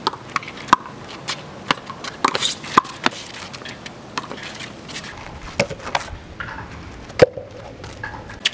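A small rubber handball smacking against a brick wall and bouncing on concrete, mixed with quick sneaker steps and scuffs on the pavement: a run of irregular sharp knocks, the loudest about seven seconds in.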